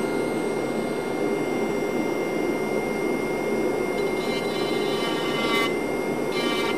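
Handheld rotary tool running at speed with a steady whine. From about four seconds in, its diamond ball bit grinds against a VW main bearing shell, adding a changing, ringing grinding tone that starts and stops. It is enlarging the bearing's oil hole for better oil flow.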